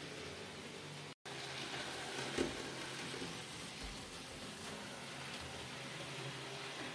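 N-scale model train running along the track: a steady whirring hiss from its small motor and wheels on the rails, with a single click about two and a half seconds in. The sound cuts out for a moment about a second in.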